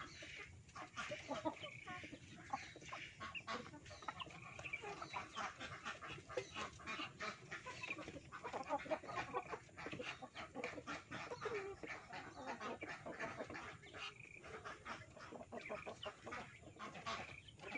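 Birds calling in short, repeated calls, over dense crackling clicks of dry nest straw being handled.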